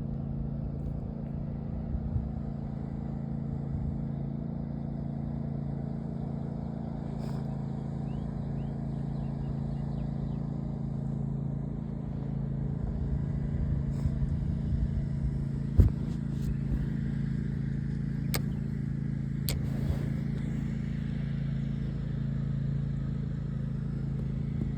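A steady low mechanical hum, like an engine or motor running unchanged, with a few sharp clicks, the loudest about two-thirds of the way through.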